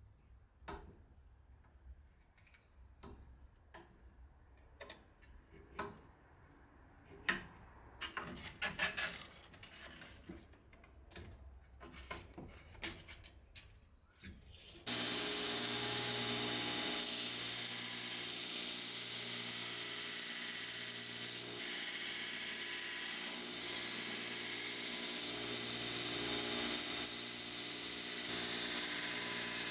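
Light clicks and knocks of steel parts handled on a belt grinder's work rest, then about halfway the belt grinder starts suddenly and runs steadily, a motor hum under the hiss of the abrasive belt as a 1084 high-carbon steel knife blank is ground against it.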